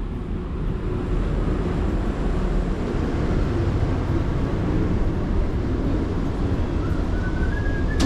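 Steady low rumble of a vehicle in motion, heard from inside it, growing slightly louder about a second in. Near the end a faint rising tone sounds, followed by a click.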